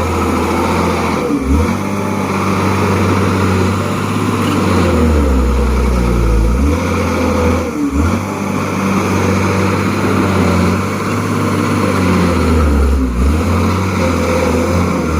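Caterpillar bulldozer's diesel engine running under load. Its low note shifts up and down several times as the machine works.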